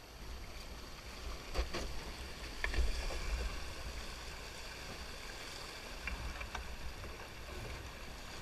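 Shallow river riffle rushing around a loaded canoe's hull as the canoe runs down through it, with a few short sharp knocks. Wind rumbles on the microphone.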